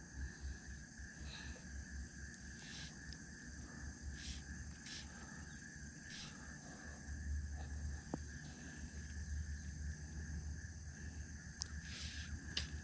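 Steady chorus of insects, a constant high-pitched ringing, over a low rumble, with a few faint clicks.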